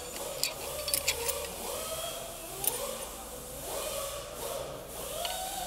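Light metal clicks and clinks as parts of a seized Hyundai D4CB diesel engine (connecting rod, crankshaft and bearing shells) are handled during teardown. A cluster of clicks comes about a second in and another near the middle. Under them a faint tone rises and falls repeatedly.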